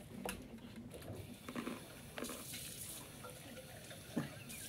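Kitchen tap running into a sink, faint and steady, with a few short crunches of hard corn-kernel snacks being bitten.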